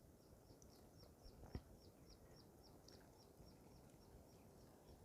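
Near silence, with a small bird faintly repeating a short, high chirp about four times a second, fading out after about three seconds.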